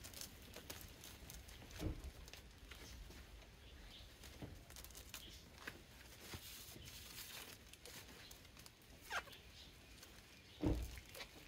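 Plastic tape and the soil-filled plastic air-layer bag crinkling and rustling as tape is wrapped around a branch by hand, with scattered small clicks. A brief falling chirp comes about nine seconds in, and a louder thump near the end.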